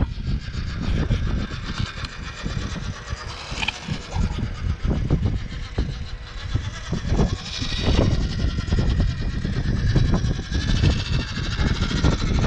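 A small 1/16-scale WPL RC crawler truck's electric motor and gearbox whining as it crawls over rock, with irregular clicks and knocks from the tyres and suspension on the stone. A loud, uneven low rumble runs under it all, and the whine grows louder around the middle and again near the end.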